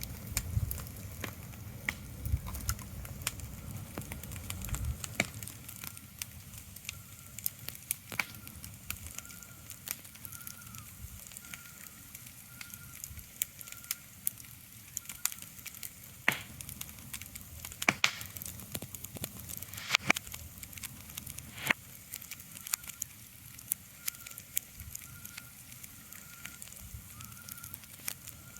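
Irregular crackling with sharp pops over a soft hiss, like a wood fire. A faint, high, evenly repeating chirp comes and goes. A low rumble fades out about five seconds in.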